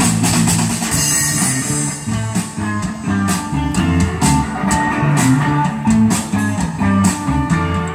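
Live rock band playing an instrumental passage: two electric guitars through amplifiers, electric bass and a drum kit.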